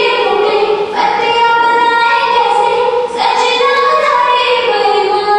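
Opening of a recorded Bollywood song: a high female voice sings long, held notes, changing pitch about once a second.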